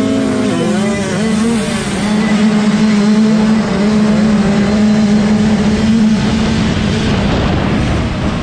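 Yamaha YZ65 single-cylinder two-stroke dirt bike engine revving hard through the gears off the starting gate, the revs dipping twice in the first two seconds at gear changes, then holding high and steady, and easing off near the end as the bike slows for the turn.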